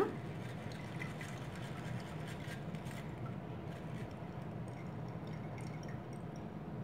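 A spoon stirring and scraping blended fruit juice in a metal mesh strainer, pressing it through into a glass mug: faint, scattered light scrapes and ticks over a steady low hum.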